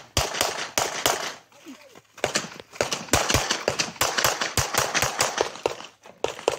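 Rapid pistol fire from a CZ 75 SP-01 9mm: strings of shots several a second. There is a pause about a second and a half in, then a long run of shots and a last few near the end.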